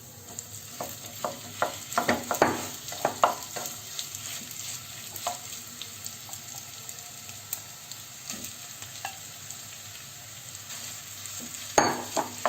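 Mashed boiled potatoes going into a pan of oil where cumin, mustard seeds, ginger and green chilli are sizzling, with a spoon knocking and scraping against the pan as they are stirred. The sizzle is steady, and the knocks come in clusters in the first few seconds and again near the end.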